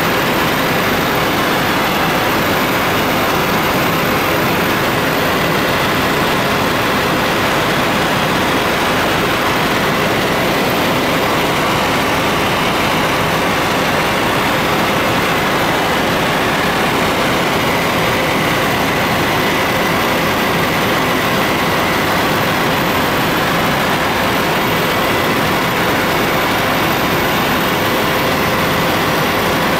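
Helicopter engine and main rotor running steadily in flight, heard from inside the cabin as an even, unbroken drone with a faint steady high tone.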